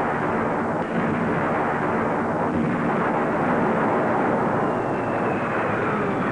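Battle sound effects: a dense, steady din of explosions and blasts, with no single clear bang standing out.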